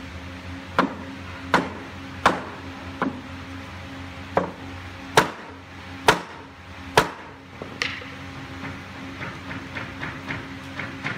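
Wooden mallet knocking on the rails of a hardwood door frame, driving its joints tight. About nine sharp blows come at an uneven pace of roughly one a second, followed by a run of lighter, quicker taps near the end.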